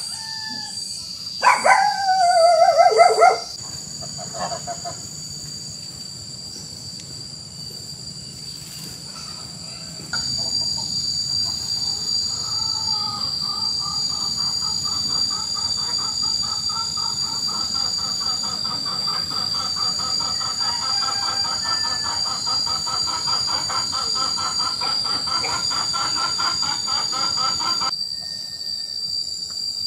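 Domestic geese honking loudly for about two seconds near the start, over a steady high-pitched insect drone. From about a third of the way in, a louder, rapidly pulsing buzz joins the drone and stops abruptly near the end.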